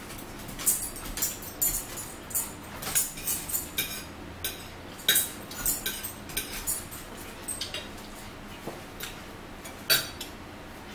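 Metal forks clinking and scraping against dinner plates while eating: irregular sharp clinks, busiest in the first half and sparser later, with one louder clink near the end.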